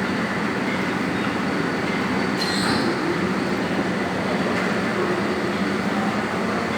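Hydraulic segment-type surface grinder running with a steady mechanical noise. There is a brief high squeal about two and a half seconds in.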